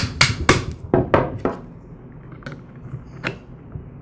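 Small hammer tapping a steel hinge pin through the holes of a lawn mower chute deflector bracket: about five light, sharp taps, slowing and stopping about a second and a half in. Two faint clicks follow.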